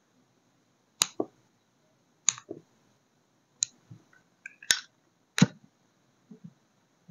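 Sharp clicks and light taps of small hard wax-sealing tools and materials being picked up and set down, about seven clear ones roughly a second apart with softer ones between. The loudest is a little past halfway.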